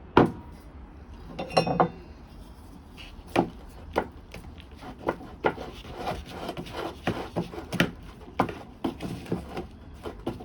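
Irregular knocks, taps and scrapes of a plant pot and damp potting mix being handled during repotting, coming more often from about five seconds in, over a steady low background hum.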